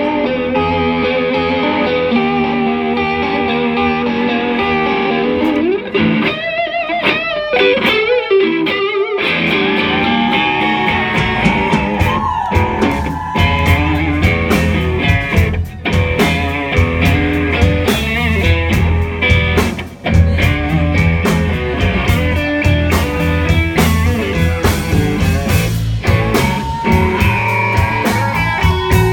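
Live blues band: an electric guitar plays an improvised dirty blues solo, with bent, wavering notes, over bass and drums.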